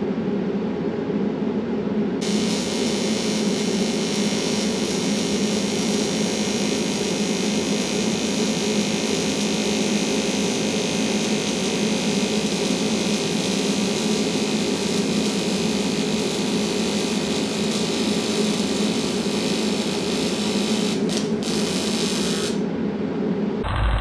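TIG welding arc on steel: a steady hum with a bright, even hiss from the arc that starts about two seconds in and stops shortly before the end, with a few brief crackles just before it cuts out.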